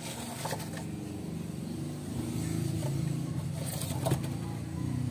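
A low, steady engine rumble with a few faint clicks, about half a second in and again around four seconds in.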